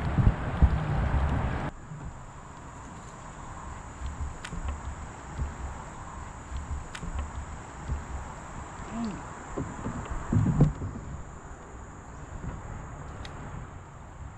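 Wind on the microphone and water rushing past the kayak under way, cutting off suddenly about two seconds in. Then a steady high insect drone over quiet river ambience, with a few soft splashes and knocks.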